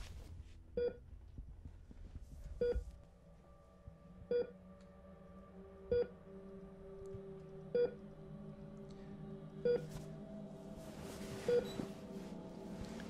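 Bedside patient monitor beeping steadily, one short pitched beep about every two seconds. A low sustained musical drone comes in underneath after a few seconds and slowly swells.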